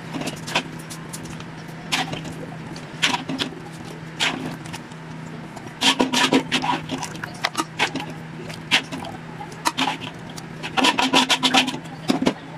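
A cooking utensil scraping and clinking against a metal wok and a stainless steel tray as cooked chicken in sauce is ladled across. The knocks come in scattered bunches, busiest about halfway through and near the end, over a steady low hum.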